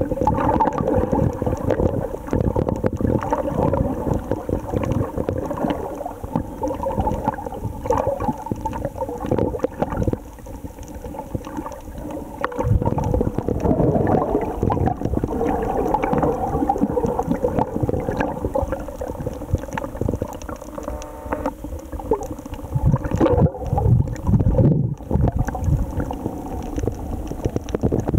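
Muffled underwater sound from a camera held below the surface: water sloshing and gurgling against the housing, with a faint steady hum underneath.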